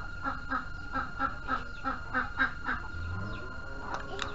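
Domestic fowl calling in a quick series of about ten short calls, roughly four a second, which stop about three-quarters of the way through.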